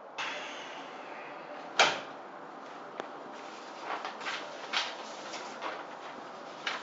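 A single sharp knock about two seconds in, then a click and a series of short rustles and shuffles as a man moves about handling loose sheets of paper.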